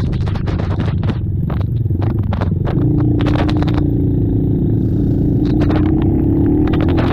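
ATV engines running with many short clicks and scraping noises; from about three seconds in one engine holds a steady pitch.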